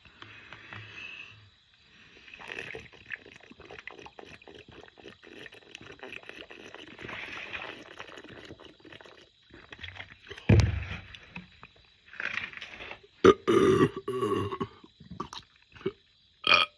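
A man burping several times, loud and deep, from the gas of a freshly chugged 2-liter Diet Coke. The burps come in the second half, after several seconds of quieter crackly noise.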